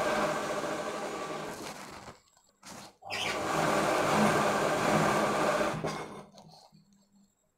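Sewing machine stitching in two runs: the first stops about two seconds in, the second starts after a pause of under a second and stops about six seconds in.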